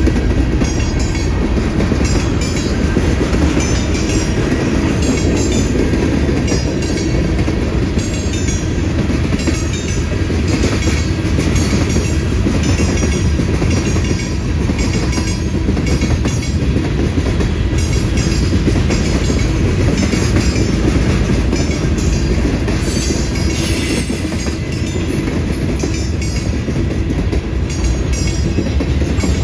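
Freight train cars rolling past close by: a steady, loud rumble with repeated clacking of wheels over the rail joints.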